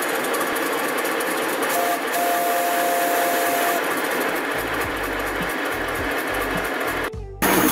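Miniature 0-6-2 live steam locomotive running with its wheels turning free on a raised stand, a steady hiss. The hiss breaks off briefly just after seven seconds in and then comes back.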